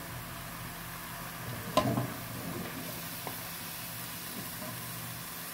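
Strips of bottle gourd (opo) frying with a steady sizzle while a wooden spatula stirs them in a metal pan, with a sharp knock of the spatula against the pan about two seconds in and a few lighter taps after.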